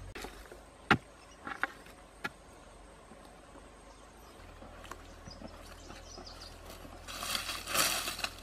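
A few sharp knocks in the first couple of seconds, then about a second of hand scraping and digging in dry, dusty soil at a burrow near the end.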